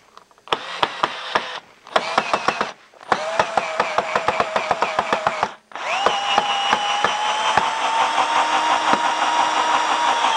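DeWalt 12-volt max cordless screwdriver driving a screw into wood in four runs: three short bursts of motor whine full of rapid clicking, then a longer steady whine from about six seconds in. The clicking goes with a bit that did not get a good grip, which the user says may have slowed the drive.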